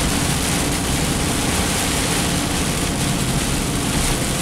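Heavy rain drumming steadily on a car's roof and windscreen, heard inside the cabin over the low hum of the engine and tyres on the wet road.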